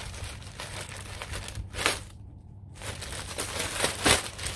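Thin black plastic mailing bag crinkling and rustling as it is pulled open and shaken, with two louder rustles, about two seconds in and near the end.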